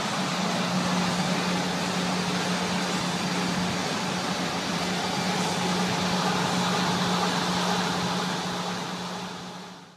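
Woodway treadmill running at 24 mph: a steady whirring noise of the belt and motor over a constant low hum, fading out near the end.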